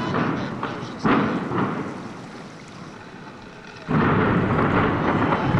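Demolition charges of a building implosion going off at a distance. A sudden blast about a second in fades away, then just before four seconds a loud, sustained rumble of blasts sets in.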